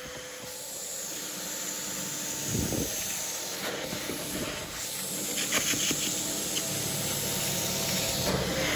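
Sapphire Scientific upholstery extraction tool hissing as it sprays hot water and vacuums it back up off a cotton cushion, driven by an E600 hot-water extractor. The hiss builds over the first few seconds, with a soft thump about two and a half seconds in and a few light clicks later on.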